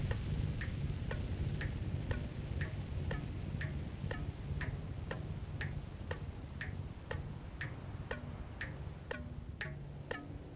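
Steady ticking clicks, about two a second, each with a short pitched ring, over a low rumbling drone in an ambient relaxation soundscape.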